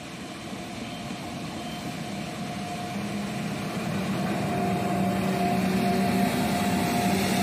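Indian Railways WAG-9 electric locomotive hauling a freight train, approaching and passing close by. It grows steadily louder, and its steady hum and higher whine come out plainly over the rumble from about halfway through.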